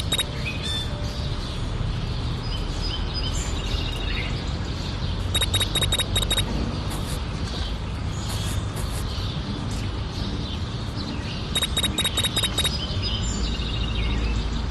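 Quick runs of high bird-like chirps over a steady low rumble; the same run of chirps comes back about every six seconds.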